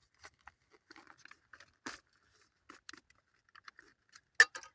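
Crinkling and crackling of a Mountain House freeze-dried meal pouch being pressed shut and handled: scattered short rustles, with sharper crackles about two seconds in and near the end.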